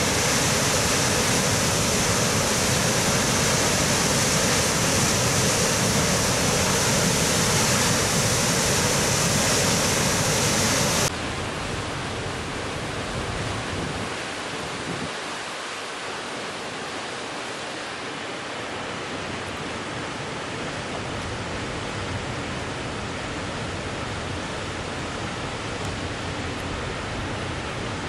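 Reekie Linn waterfall in spate: a steady, loud rush of heavy brown floodwater pouring through a rocky gorge. About eleven seconds in, the sound drops suddenly in level and becomes duller, then carries on steady.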